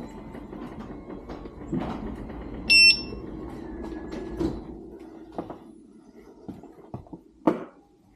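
Begode Master Pro V2 electric unicycle being handled: scattered knocks and clunks as the heavy wheel is lifted and tipped, over a steady low hum that fades out about halfway. One short, loud electronic beep sounds about three seconds in, and a sharp knock comes near the end.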